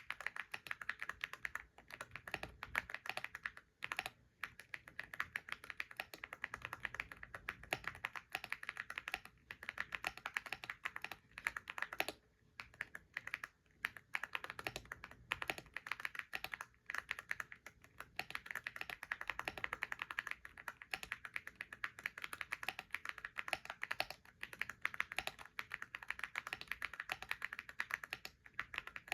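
Computer keyboard typed on in fast continuous runs, dense key clicks with brief pauses every few seconds.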